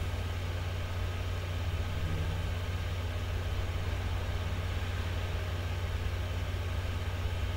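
Steady low electrical hum, strongest near 100 Hz, with a faint hiss behind it.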